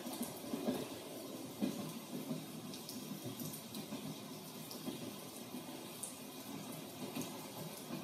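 Rain falling and dripping, a steady hiss with scattered drop ticks.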